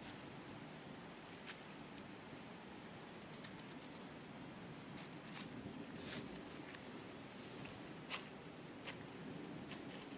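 A bird calling a short, high chirp over and over, about every three-quarters of a second, over faint outdoor background, with a few faint clicks and scrapes as a small fish is cleaned by hand.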